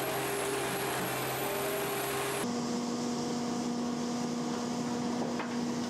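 Industrial tree-stump shredders running, a steady machine hum with a high whine over it; about two and a half seconds in the sound cuts to a second machine, a URACO Predator shredder, with a different steady hum.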